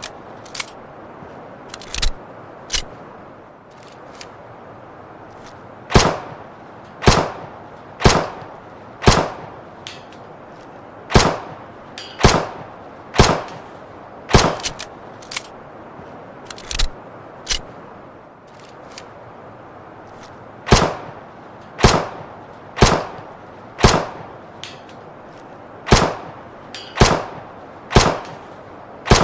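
Luger pistol shots fired singly, many in runs about a second apart with pauses between, and a few weaker cracks among them, over a steady hiss.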